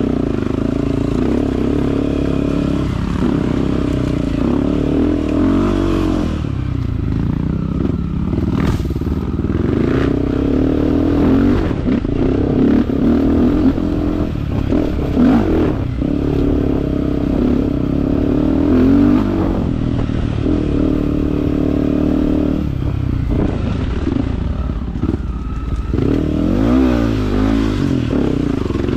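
Dirt bike engine running under changing throttle, its pitch rising and falling as the rider works the throttle, with a few sharp knocks along the way.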